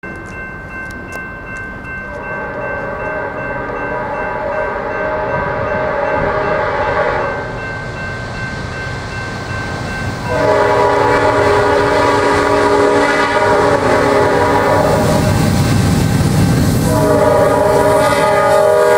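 Norfolk Southern GE C40-9W diesel locomotive sounding its multi-note air horn in long blasts: one of about five seconds, another of about five to six seconds after a pause, and a third starting near the end. The engine and wheel rumble grows as the train comes close.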